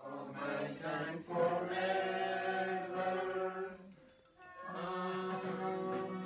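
A group of people singing together, a slow song of long held notes, in two phrases with a short break about four seconds in.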